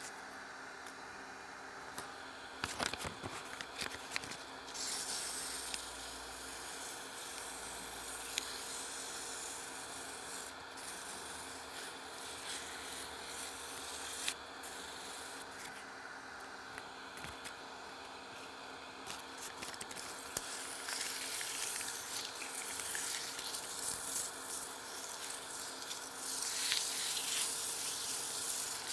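Sandpaper rubbing against a walnut turning spinning on a wood lathe, over the lathe's steady hum. A few sharp knocks come about three seconds in, and the rubbing grows louder over the last few seconds.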